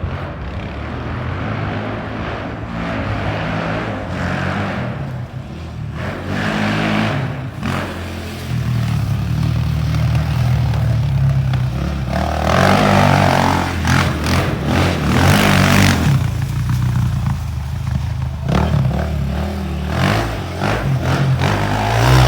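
Honda TRX400EX ATV's single-cylinder four-stroke engine running and being revved, the pitch rising and falling with several louder surges in the second half.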